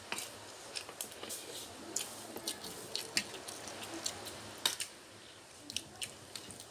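Eating at a table: small scattered clicks of spoons against plates, with quiet chewing. The sharpest click comes a little before the end.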